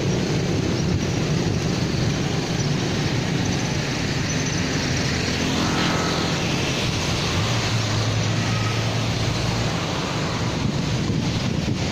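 Motorcycle running on the road with traffic noise and wind on the microphone; an engine note swells and fades about halfway through.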